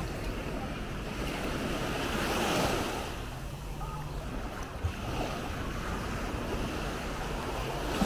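Small waves lapping and washing onto a sandy shore, with a swell of surf about two and a half seconds in, and wind rumbling on the microphone.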